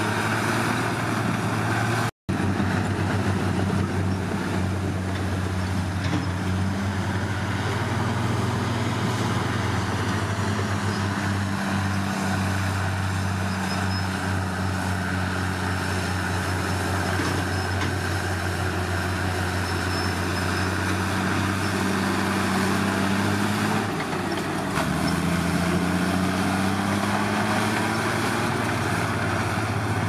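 Komatsu D53P bulldozer's diesel engine running steadily, its pitch sagging and rising again a few times as it works. The sound cuts out for an instant about two seconds in.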